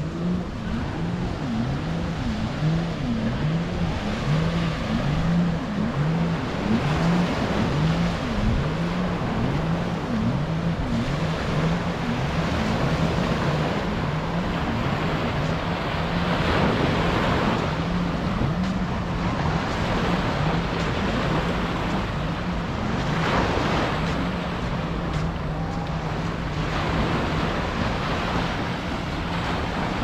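Small waves washing up on a sand beach, the surf swelling and falling every few seconds, over a steady low engine drone that wavers in pitch during the first several seconds and then holds.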